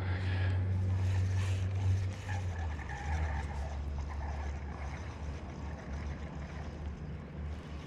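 Boat motor running with a steady low hum, which steps down slightly in pitch a little under three seconds in.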